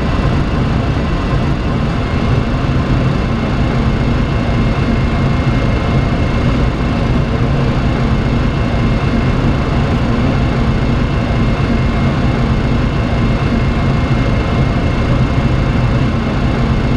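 Steady cockpit noise of a Boeing 737-300 in descent on approach: the rush of air around the flight deck over a low engine hum, with a faint high steady whine.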